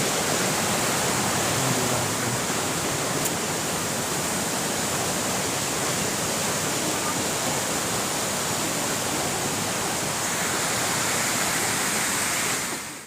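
Waterfall rushing: a steady, even roar of falling water that cuts off abruptly at the very end.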